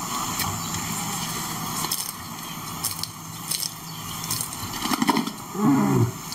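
Male lion giving a short low call near the end, its pitch bending up and down, over a steady background hiss with scattered sharp clicks.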